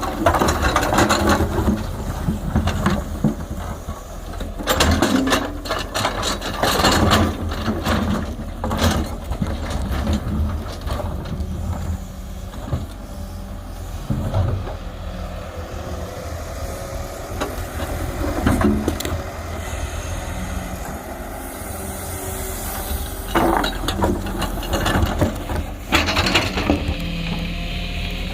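Tata Hitachi excavator's diesel engine running steadily under work, with repeated knocks and clanks through it and the engine swelling louder at times.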